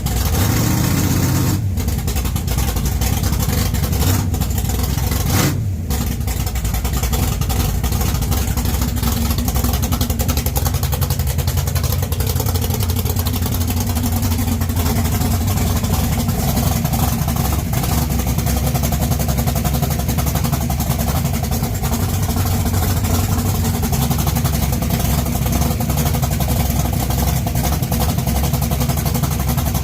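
1969 Camaro drag car's engine running loud, revved briefly twice in the first few seconds, then held at a steady idle.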